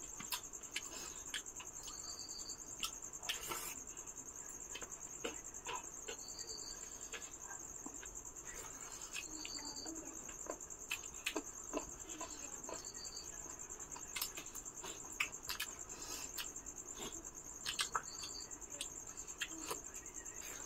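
Crickets trilling steadily, with a shorter insect chirp every few seconds. Over it come scattered clicks and smacks of eating by hand: fingers on plates and mouth sounds.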